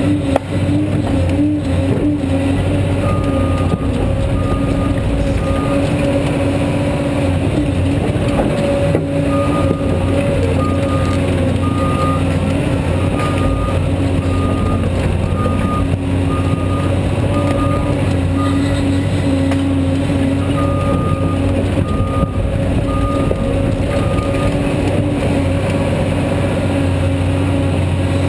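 Caterpillar 345D excavator's diesel engine and hydraulics running steadily as it digs and lifts loads of soil. A backup alarm beeps in spells that stop and start.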